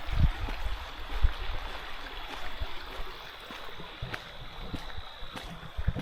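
A creek flowing steadily over rocks, with irregular footsteps and low thumps on the trail and a thin steady high tone.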